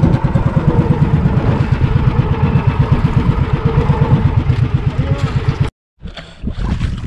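The outrigger boat's small engine running at idle, a steady rapid low thudding that cuts off abruptly near the end, followed by wind on the microphone.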